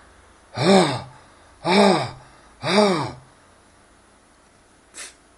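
A man's voice giving three short 'ahh' moans about a second apart, each rising and then falling in pitch, playing the voice of a chocolate bunny as a finger presses on its head. A faint tap near the end.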